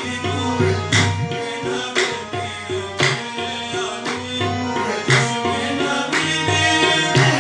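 Qawwali music: a harmonium playing sustained chords and melody over a hand-drum rhythm, with sharp hand claps about once a second.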